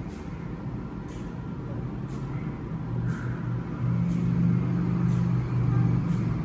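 A steady low motor hum, growing louder about four seconds in, with faint ticks about once a second.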